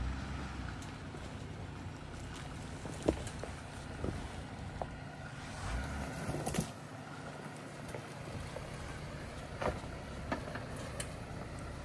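Jeep Gladiator Rubicon running slowly off-road, a steady low engine hum with scattered knocks and clicks from the vehicle working over the trail.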